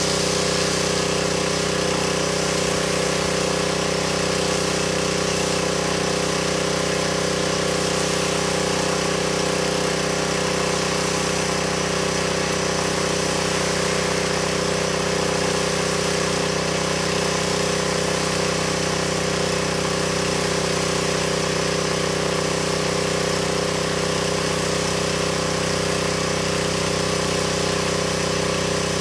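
Pressure washer running steadily at one even pitch, with a constant hiss of spray.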